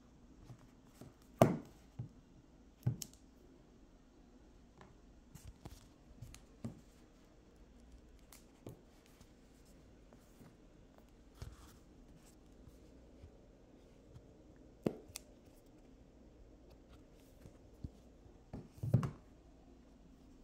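Handling noise close to a phone's microphone: scattered light taps and clicks of small items being picked up and set down. A few sharper knocks stand out, about a second and a half in, at about three seconds, and twice more later on.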